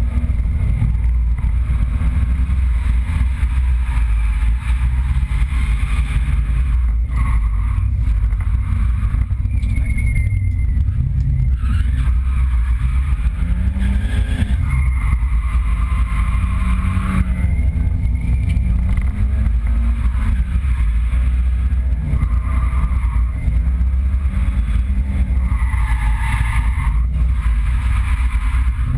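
Nissan 200SX drift car's engine running hard inside the cabin, its revs rising and falling again and again, with tyres squealing in several stretches as the car drifts.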